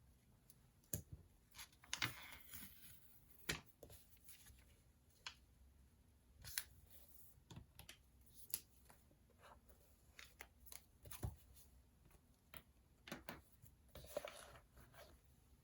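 Faint desk sounds of someone studying: scattered small taps and clicks, with brief paper rustling about two seconds in and again near the end.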